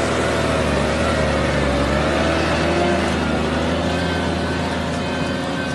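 New Holland T7070 tractor's six-cylinder diesel engine running steadily under the heavy load of pulling a six-furrow reversible plough.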